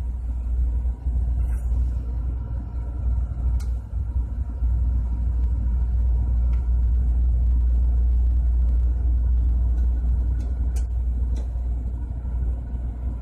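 Steady low rumble of running machinery with a faint hum, and a few light metallic clicks near the end as compressor valve plates are handled and set in place.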